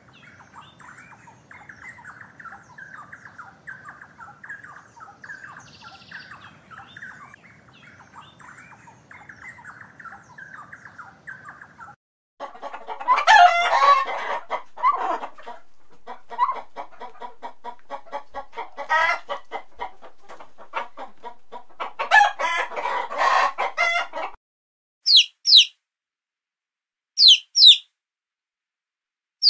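A chicken clucking, loud and busy, over the middle of the stretch, after a faint rapid rattling. Near the end a chick gives short, high peeps in pairs.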